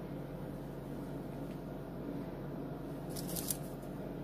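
Kitchen shears being picked up and handled, a brief cluster of sharp metallic clicks about three seconds in, over a steady low background hum.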